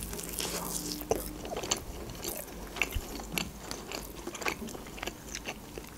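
Close-miked chewing of grilled kebab meat, with short mouth clicks at irregular intervals.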